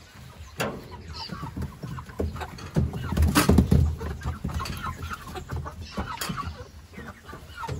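Chickens clucking, mixed with scattered knocks and clatter from the pen, loudest about three and a half seconds in.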